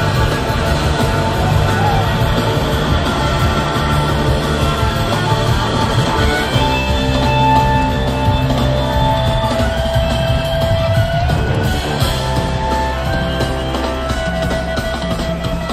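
Live blues-rock band playing an instrumental jam: electric slide guitar holding long sustained notes that slide up slightly at their ends, over bass, keyboards and two drum kits.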